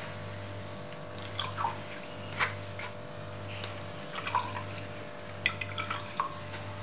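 Juice dripping and trickling from a mesh strainer into a glass measuring jug that already holds juice: small irregular drips and splashes every second or so, over a steady low hum.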